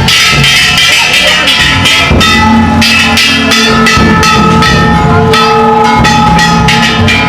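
Ishidori bayashi: a large taiko drum and hand-held kane gongs struck rapidly and very loudly, the gongs' metallic ringing sustained over the dense beating.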